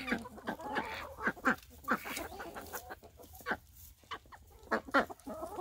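A flock of chickens clucking in many short, overlapping notes as they peck at food.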